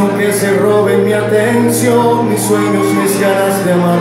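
Live band playing a slow song, with sustained keyboard chords and bass guitar and a voice singing over them.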